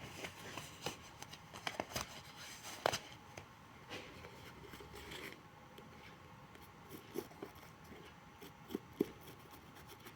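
Scattered light clicks, taps and short scrapes of hand work on a shoe and its sole, with a few sharper clicks about three seconds in and again near the end.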